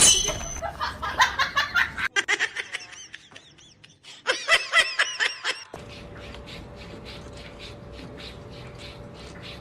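Laughing in quick repeated bursts, with a second, higher run of giggling about four seconds in; after that a quieter steady hum with faint regular pulses.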